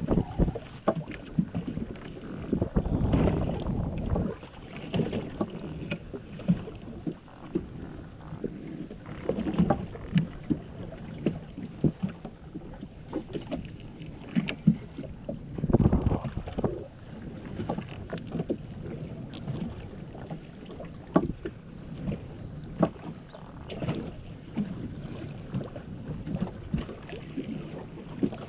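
Irregular knocks and clatter on a small fishing boat, over wind and water noise, with louder rushing stretches a few times.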